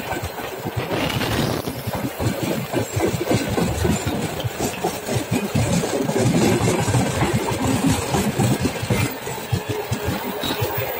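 Railway tank wagons of a freight train rolling past: a continuous rumble of steel wheels on the rails with rapid clattering and rattling.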